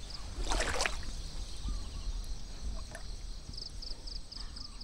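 A small hooked fish splashing briefly at the water's surface as it is lifted on the line, about half a second in. From about three and a half seconds in, an insect chirps in quick pulses, about four a second.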